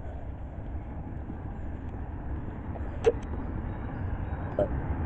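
Steady low hum of road traffic heard from a roadside footpath, slowly growing louder toward the end, with two light clicks about three and four and a half seconds in.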